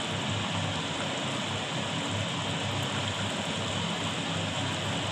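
Egg, potato and pointed gourd curry simmering in a kadai over a gas burner at low-to-medium heat: a steady bubbling hiss with a low flutter underneath.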